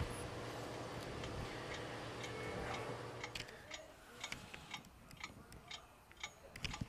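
A steady low hum that stops about three and a half seconds in, then scattered light clicks and ticks of metal hardware being handled during a ceiling-fan installation.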